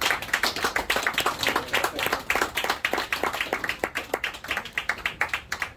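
Applause from a small audience: many individual hand claps that can be told apart, thinning out near the end.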